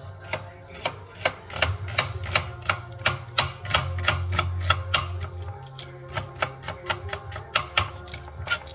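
Chef's knife dicing an onion on a plastic cutting board: steady, rapid chops, about three a second, each blade strike a sharp tap on the board.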